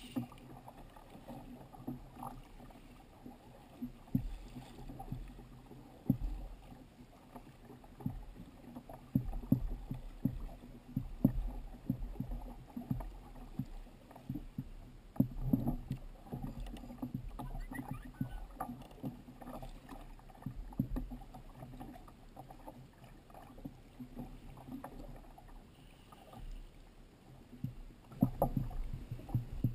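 Ocean chop slapping and knocking against the plastic hull of a Jackson Kraken fishing kayak: a string of irregular thumps over a low rumble of moving water.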